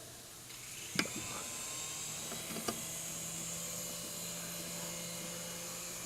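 A small electric motor starts running about half a second in, with a steady high whine over a low hum. There is a sharp click about a second in and a fainter one a little later.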